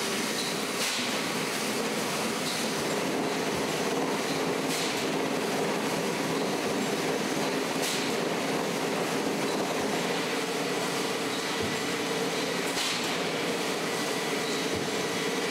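Industrial machinery running: a steady mechanical noise with a low hum, and a short hiss now and then.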